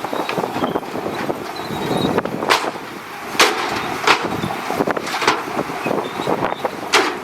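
Shantui DH17C2 bulldozer's diesel running as it works, with a handful of sharp knocks spread through.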